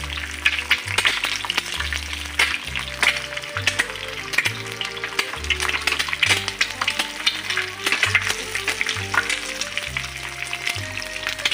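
Egg frying in hot oil in a small nonstick pan, a steady sizzle dotted with crackles. Background music with a bass line plays underneath.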